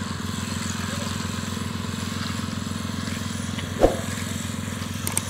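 A small engine running steadily with a fast, even pulse, and one short sharp knock about four seconds in.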